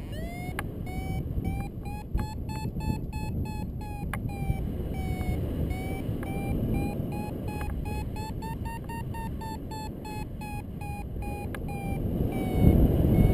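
Paragliding variometer beeping in a quick train of short tones, the signal that the glider is climbing in lift, over wind rushing on the microphone. The beeps' pitch sags a little midway and climbs again near the end, when the wind grows louder.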